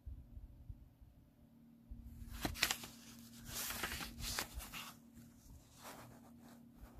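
Pages of a paperback book being turned and handled: soft papery rustles in a few short bursts, the busiest stretch in the middle.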